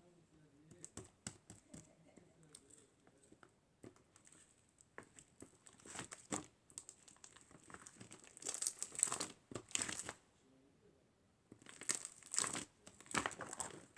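Crinkling and rustling of something being handled, in irregular crackly bursts that grow louder past the middle, with a short pause before the last few seconds.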